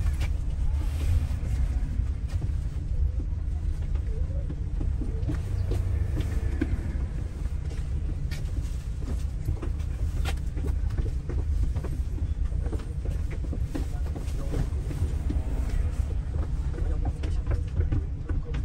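Double-decker bus heard from on board while driving: a steady low engine and road rumble, with frequent small knocks and rattles from the bodywork and fittings.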